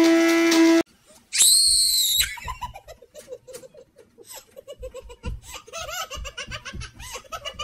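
A steady hum cuts off suddenly under a second in. A short high-pitched squeal follows, then a person laughs in quick, repeated ha-ha pulses for the rest of the time.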